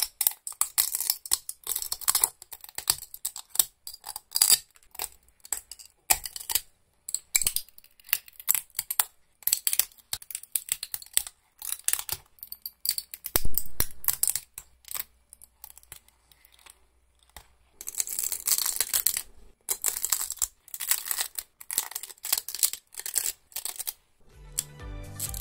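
Pliers snapping and tearing support material off 3D-printed silk PLA parts: a quick, uneven run of sharp cracks and crackles, falling quiet for about two seconds roughly two-thirds of the way through.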